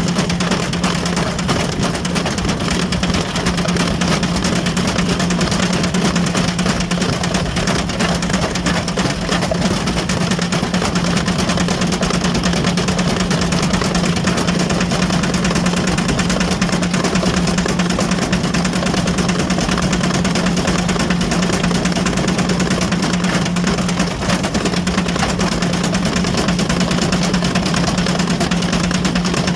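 Ariston Margherita washing machine running fast with a brick in the drum: a steady motor hum under continuous dense rattling and knocking.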